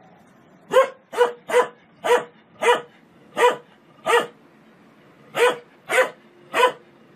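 A dog barking ten times in a steady series, with a short pause after the seventh bark.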